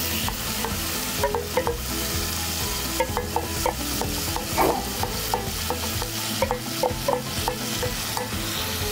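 Tomato sauce poured into a hot pot of sautéed onion, ham and peas, sizzling with steady hiss and many small pops as it deglazes the pot.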